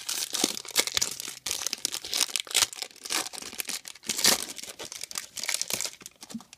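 Foil-lined trading-card pack wrappers being torn open and crinkled by hand: a dense run of sharp crackles that stops near the end.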